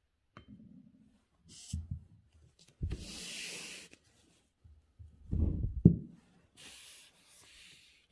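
A sheet of calligraphy paper being slid and handled on a desk: a few spells of rubbing and rustling, with low knocks, the loudest a sharp knock about six seconds in.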